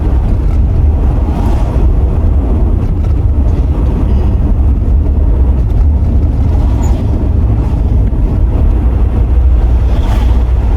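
Mercedes R129 SL500 on the move: a steady, deep rumble of road and wind noise with the engine running under it.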